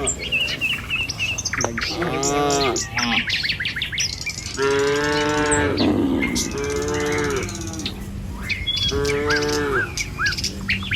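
Cattle mooing, four long drawn-out moos, over birds chirping.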